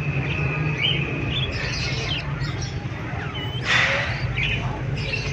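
Parrots chirping and twittering in short calls, with one louder, harsher squawk just before four seconds in, over a steady low hum.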